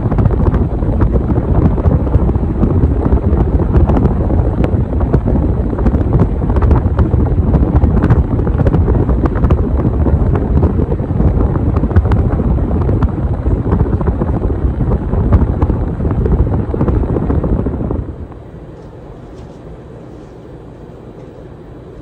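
Hunter Original 52-inch ceiling fan running with four blades, its airflow buffeting the microphone as a loud, rough rumble. Near the end the rumble drops abruptly to a much quieter steady noise.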